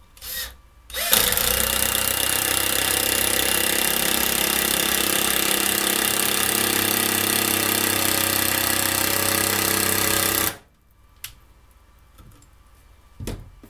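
Bosch 12-volt cordless impact driver driving a 3-inch deck screw into a 2x4. A brief blip of the trigger comes first, then about nine seconds of continuous rapid hammering from the impact mechanism, which stops abruptly.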